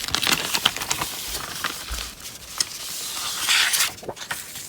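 Paper pamphlets rustling and crinkling as they are handled, with many short crackles and a longer rustle about three and a half seconds in.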